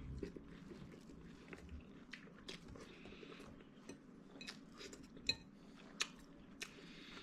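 A person chewing food with the mouth open: irregular wet clicks and smacks, a few sharper ones about five and six seconds in.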